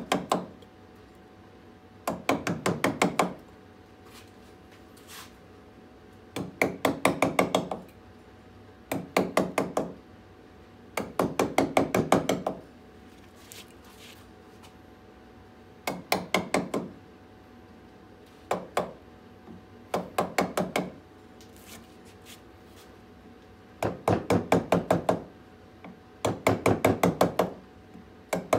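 Mallet driving a gouge into a green birch bowl blank: bursts of quick, sharp taps, several strikes each, with short pauses between bursts as the carver repositions the gouge.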